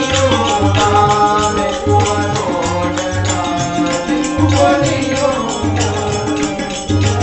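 Telugu devotional bhajan music: a harmonium's sustained reed chords with tabla and small brass hand cymbals striking a steady beat, and voices singing the hymn line.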